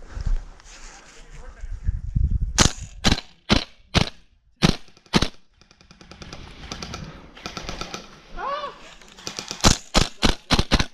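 Airsoft guns firing: six sharp single shots about half a second apart, then after a pause a quicker string of five shots near the end.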